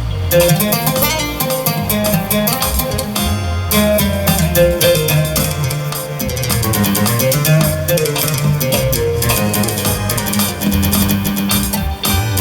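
Guitar music: plucked and strummed guitar over a bass line, playing continuously.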